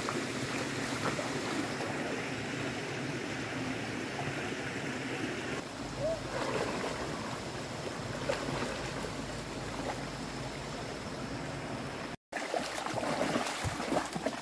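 Shallow rocky stream running with a steady wash of water, and water splashing as feet wade through it and hands grope in it, the splashing closer and louder near the end.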